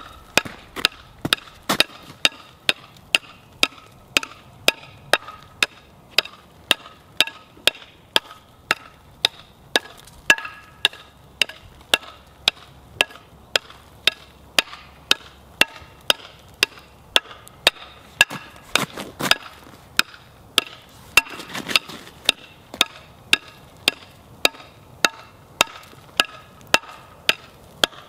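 Homemade wooden pickaxe striking and chipping ice on an asphalt driveway: short, regular chops, about two a second, each a sharp knock with a slight ring.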